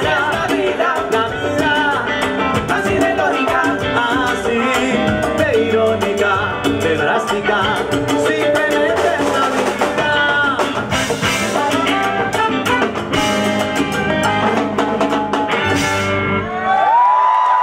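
Live salsa band playing: lead vocals over electric guitar, bass, drum kit and percussion with a steady beat. The band stops together about a second before the end, and a long held shout and cheering from the audience follow.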